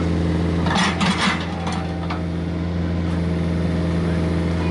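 Komatsu PC45MR mini excavator's diesel engine running at a steady pitch while digging, with a short scraping rattle about a second in as the bucket works the soil, followed by a couple of faint clicks.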